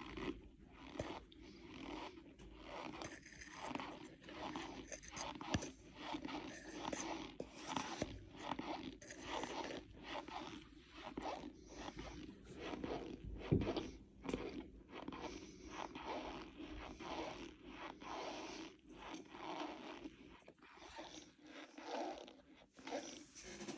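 Cornstarch powder being crunched again and again, a short crunch roughly twice a second.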